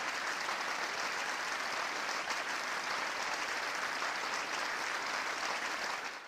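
A crowd applauding, a steady dense clapping that fades away near the end.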